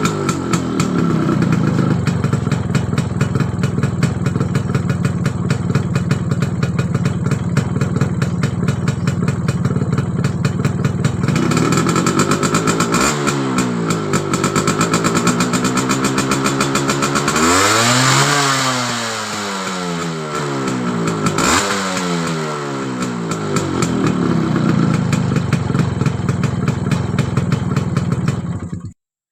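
Yamaha RX100's single-cylinder two-stroke engine idling with a fast popping exhaust beat and blipped several times: a short rev about halfway through, a higher rev a little later, and another just after. It settles back to idle, and the sound cuts off suddenly near the end.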